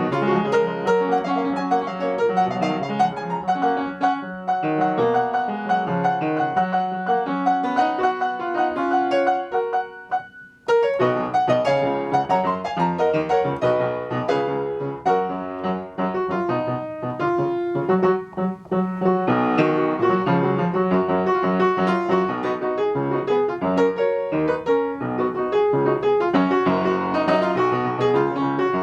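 Piano music, a continuous run of notes that breaks off briefly about ten and a half seconds in before carrying on.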